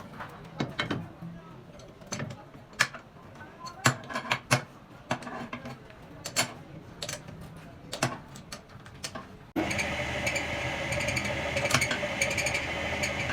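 Scattered sharp metal clicks and knocks from hand work on an engine part, then an abrupt change about nine and a half seconds in to a louder, steady machine running with a fixed whine.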